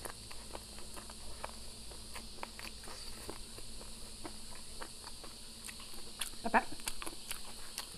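Scattered soft, irregular clicks and smacks of chewing over a steady high drone of insects, with one brief voiced sound about six and a half seconds in.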